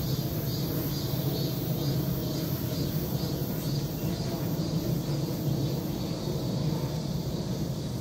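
Steady low outdoor rumble, like distant traffic or an aircraft, with a faint high hiss pulsing evenly over it.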